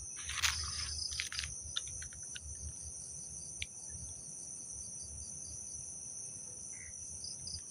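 Night chorus of crickets: a continuous, steady high-pitched trill, with a few sharp clicks about a second in.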